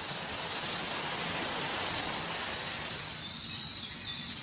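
Steady rushing noise of a waterfall pouring into a pool, with faint high, thin whistles over it in the second half.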